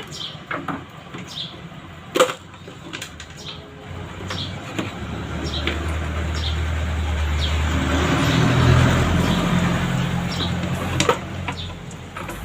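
A motor vehicle passes by: a low rumble swells over several seconds and then fades. Scattered sharp clicks and taps, like parts and tools being handled, sound throughout, one louder click about two seconds in.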